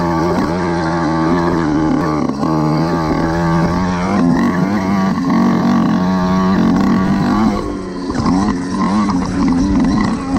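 Motorised bicycle's small petrol engine running under throttle while riding over dirt, its note rising and falling with the throttle. About eight seconds in the revs briefly drop off, then pick back up.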